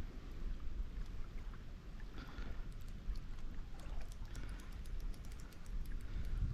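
Low, steady rumble of wind on the microphone, with faint irregular clicking in the second half.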